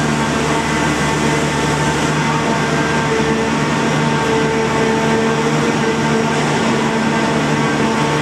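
The Grand Éléphant's diesel engine and hydraulic drive running, a steady mechanical drone with a constant hum.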